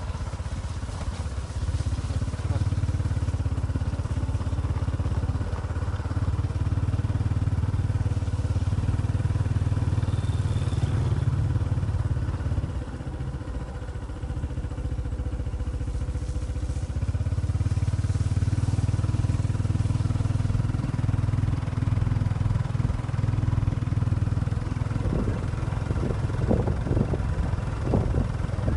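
A vehicle engine running with a steady low drone. It eases off about twelve seconds in and builds back up some five seconds later.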